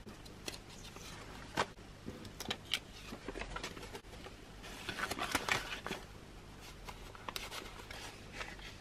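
Soft rustling and light taps of paper banknotes and a plastic-covered cash envelope being handled, with a few sharper taps early on and a denser stretch of rustling about halfway through.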